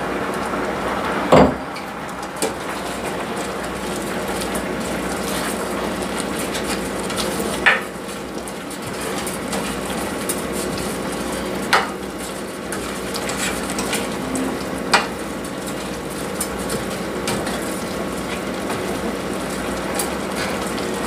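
A pot of rice, kidney beans and thyme simmering with a steady hiss while a slotted spoon stirs it and knocks against the pot several times, the loudest knock about a second in.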